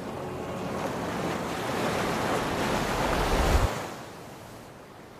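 Ocean surf on a rocky shore: a wave swells and washes in, loudest about three and a half seconds in, then drops away sharply to a quieter wash.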